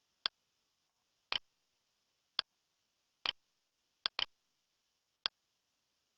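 A series of sharp, short clicks, about one a second, with two in quick succession a little past four seconds in, over a faint steady hiss.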